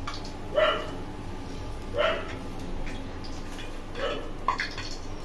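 Hot oil sizzling steadily in a pan of frying potato pieces, with a dog barking about three times, roughly a second and a half apart.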